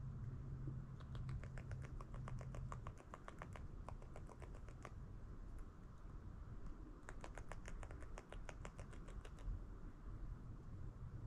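Beaver gnawing wood: two runs of rapid, crisp clicks, about eight to ten a second. The first starts about a second in and lasts some four seconds; the second starts about seven seconds in and lasts two to three seconds.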